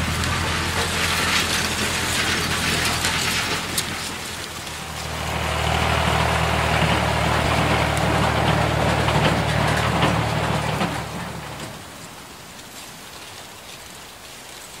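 Farm-machinery engines running steadily under a mechanical clatter, a tractor then a combine: the sound dips about four and a half seconds in, picks up again, and fades out about twelve seconds in.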